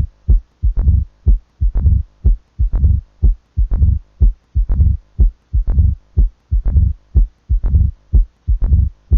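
Stethoscope recording of a mitral stenosis heart: a regular run of sharp, low-pitched beats with a low diastolic rumble between them, a 'thuk-drrup' rhythm. The beats stop right at the end.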